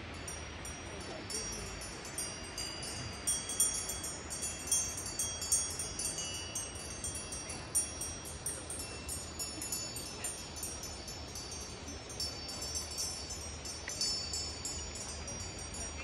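Cowbells clanking irregularly: many quick metallic strikes with high ringing tones, some louder ones between about three and eight seconds in.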